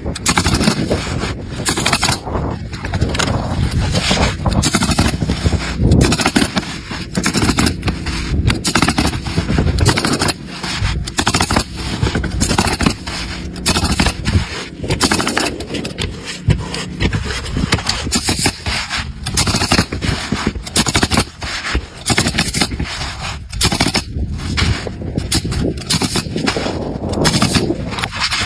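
Pneumatic coil roofing nailer driving nails through asphalt shingles: a sharp shot for each nail, fired in quick runs over and over, with scraping as shingles are slid into place.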